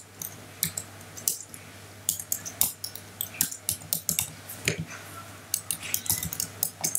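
Typing on a computer keyboard: quick, uneven runs of key clicks with short pauses between them.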